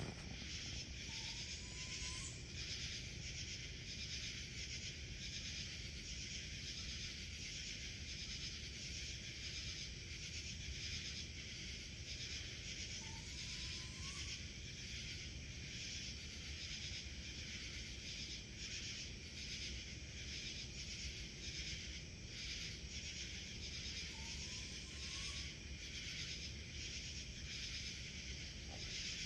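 A steady, pulsing insect chorus, with a faint call that rises in pitch repeating three times, about eleven seconds apart, each lasting about a second.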